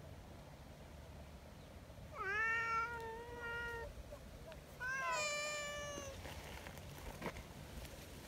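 A cat meowing twice: a long, steady meow about two seconds in, then a second meow that starts higher and slides down.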